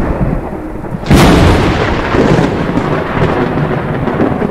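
Thunder and heavy rain: a loud rumbling noise with a sharp thunderclap about a second in, then a steady rushing downpour.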